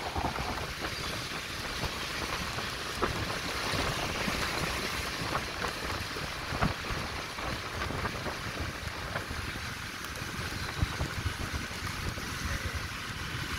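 Wind buffeting the microphone while travelling through the streets in the rain, a steady low rumble over a hiss of rain and wet road, with a few faint clicks.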